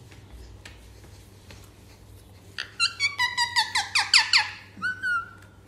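Pet parrot calling: a rapid run of about a dozen sharp, falling calls starting about two and a half seconds in, then two more shorter calls near the end.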